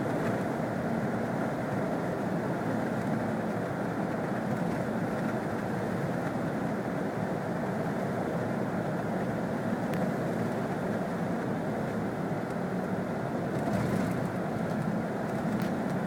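Steady drone of a vehicle driving through snow, its engine and road noise running evenly without change.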